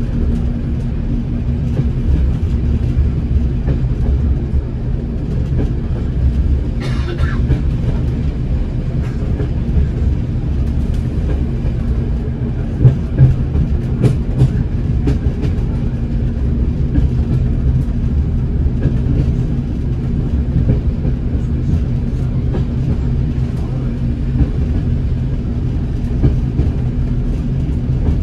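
A Class 108 diesel multiple unit running along the line, heard from the driver's cab: the steady drone of its underfloor diesel engines and wheels on rail, with a couple of sharp knocks about thirteen seconds in.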